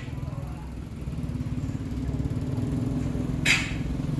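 Motor scooter engine running, getting louder from about a second in. A short, sharp hiss-like noise cuts across it about three and a half seconds in.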